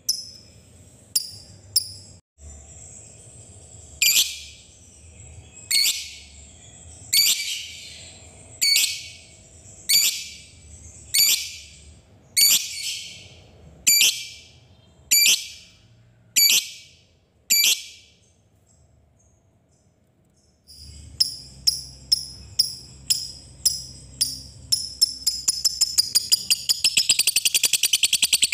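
Lovebird calling: single sharp chirps about every second and a half, a pause of a few seconds, then the calls come faster and faster and run into a long, rapid chattering trill (ngekek) near the end.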